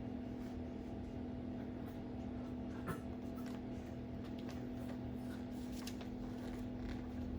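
Quiet room tone: a steady low hum with a few faint soft clicks and rustles.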